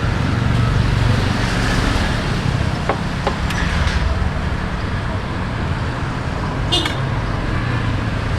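Street traffic running steadily, motor vehicles humming, with faint voices and a few light clicks and a short clink.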